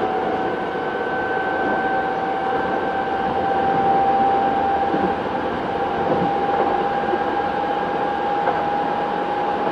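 Onboard running sound of a Kobe City Subway 1000 series train: steady rumble of wheels on rail under an electric whine from its Hitachi GTO inverter drive, rising slowly in pitch as the train gathers speed.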